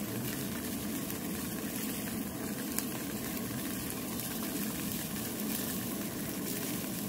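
Slices of tofu frying in oil in a pan on a portable gas burner: a steady sizzle, with one small click about three seconds in.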